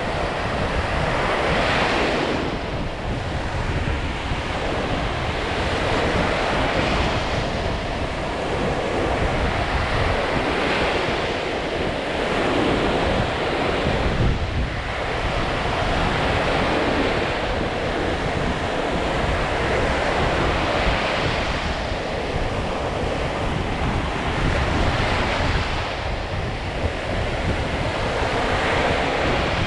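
Lake Michigan waves breaking on the shore, swelling and washing in one after another every few seconds, with wind rumbling on the microphone.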